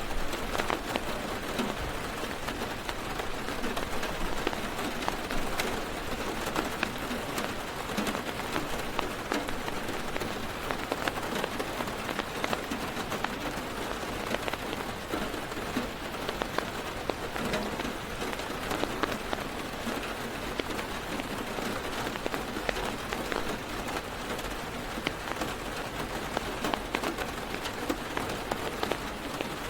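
Heavy rain falling on a car's roof and windows, heard from inside the car: a steady, dense patter with many single drops ticking sharply through it.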